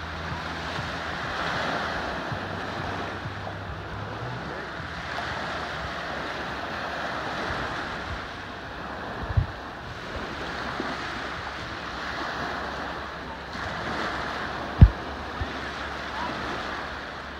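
Small waves breaking and washing up a sandy beach, the wash swelling and easing every few seconds, with wind on the microphone. Two sharp thumps cut through, a light one about nine seconds in and a much louder one near the end.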